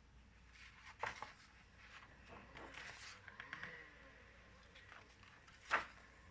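Quiet room tone broken by a few faint clicks and rustles, with one short, sharper noise near the end.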